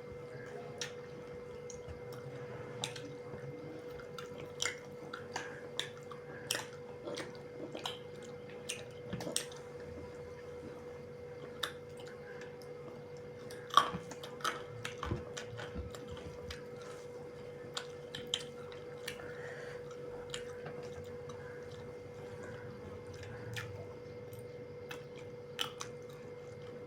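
Close-up eating sounds from a pork and rice meal: chewing, with scattered small clicks and smacks, one louder click about fourteen seconds in. A steady faint hum runs underneath.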